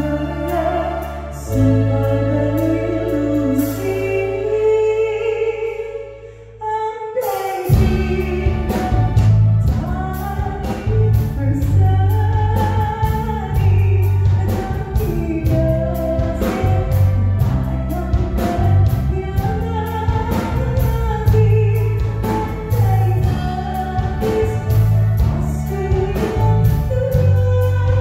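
A male singer sings live into a microphone with a band of electric guitar, bass and drums. The opening is soft over held chords; about seven seconds in the music briefly drops away, then the full band with drums comes in.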